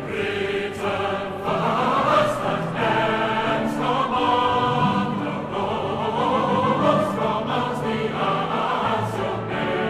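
Choral music: a choir singing sustained, slowly moving lines.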